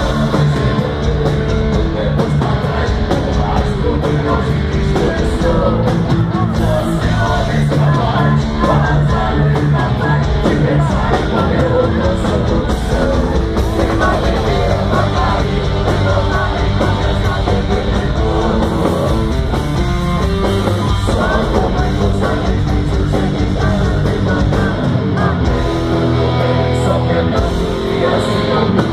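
Live heavy rock band playing loud: electric guitar through Marshall amplifier stacks and a drum kit, the music steady and unbroken.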